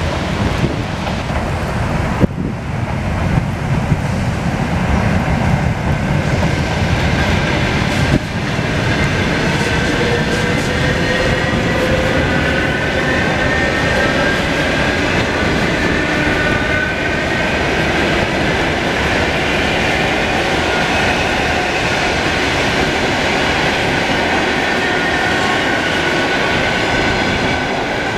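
Electric commuter train passing close by: a steady, loud rumble of wheels on rail with some clickety-clack and a couple of sharp knocks. A whine runs over the rumble and climbs slightly in pitch in the first half.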